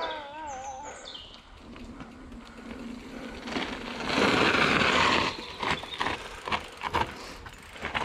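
Mountain bike riding down a dirt forest trail. The tyres' rolling rush swells to its loudest around four seconds in, then comes a run of sharp knocks and rattles over bumps. In the first second a wavering howl, typical of a dog, trails off.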